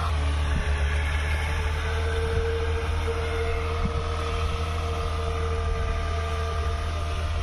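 Leyland six-cylinder diesel engine of a 150 hp tractor running steadily under load while pulling a tined cultivator through the soil.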